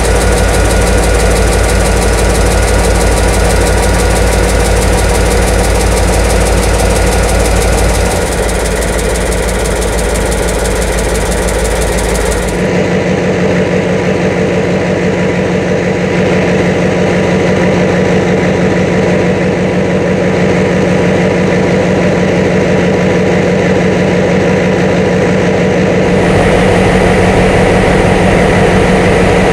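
The General Motors EMD 645 two-stroke V12 diesel engine of CIE A-class locomotive A39R, running steadily at idle. The sound is heard by turns close to the engine and from outside the locomotive, so its tone changes abruptly a few times.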